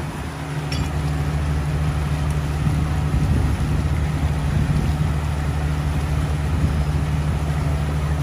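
Diesel engines of a telehandler and a mini excavator running, picking up about half a second in and then holding a steady working speed.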